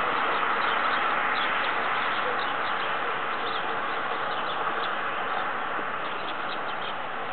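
Scattered short, high bird chirps over a steady background hiss.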